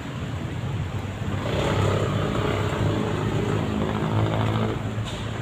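A vehicle engine running close by: a steady drone that swells about a second and a half in and then holds.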